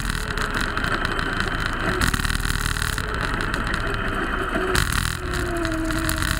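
Go-kart engine running while the kart laps the track, its pitch rising as it accelerates early on and dropping off about five seconds in as it slows for a corner.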